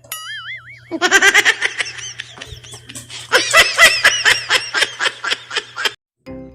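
A brief wavering, whistle-like tone, then about five seconds of loud, rapid, rhythmic laughter that cuts off suddenly.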